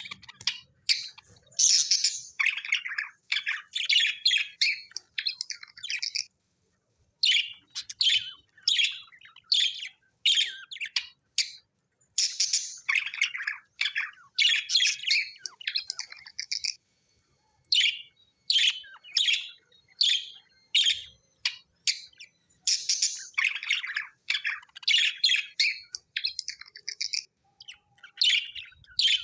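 Budgerigars chirping and chattering: runs of quick, high chirps broken by short pauses of about a second.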